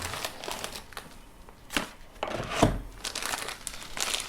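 Packaging and a microphone carrying bag being handled and opened: irregular crinkling and rustling, with two sharper clicks or knocks nearly two and nearly three seconds in.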